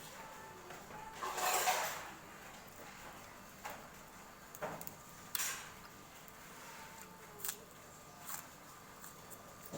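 Eating a bowl of pork noodle soup: a short slurp about a second in, then scattered light clinks of spoon and chopsticks against the bowl.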